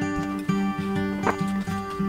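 Background music: a light acoustic guitar tune, plucked notes repeating in a steady rhythm.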